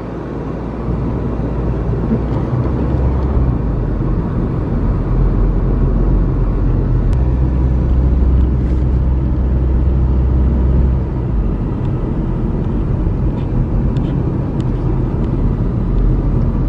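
A car driving at road speed, heard from inside the cabin: a steady low rumble of engine and tyres that grows louder a few seconds in and eases off again about two-thirds of the way through.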